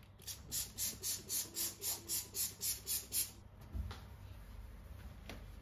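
Trigger spray bottle spraying cleaner onto a stainless-steel gas hob: about a dozen quick squirts, about four a second, then a dull knock and a light click near the end.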